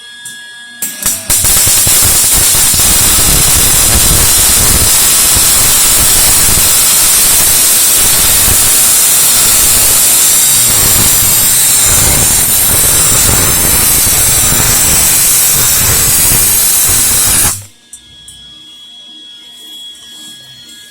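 MIG welding arc crackling steadily as a bead is run along a T-joint. It catches after a couple of brief sputters about a second in and cuts off suddenly near the end. This is the first half of the bead, stopped midway so the weld can be tied in.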